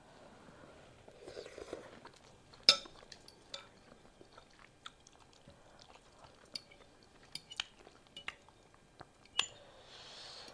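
Mouth-chewing sounds of eating noodles, with a metal fork clicking and scraping against a glass bowl. Scattered sharp clicks run through it, the loudest about two and a half seconds in.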